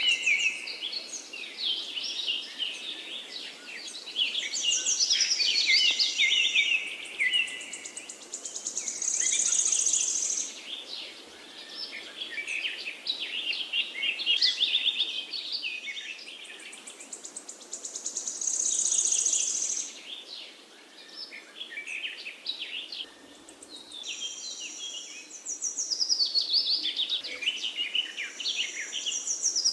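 Several songbirds chirping and singing over one another in quick, high, sliding notes, with a high buzzy trill coming in a few times.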